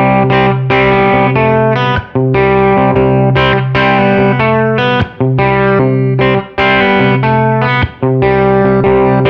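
Electric guitar, a Custom Shop Gibson Les Paul with PAF-style humbuckers, played through an overdriven amp. Ringing chords are held and changed every second or two, with a short break at each change.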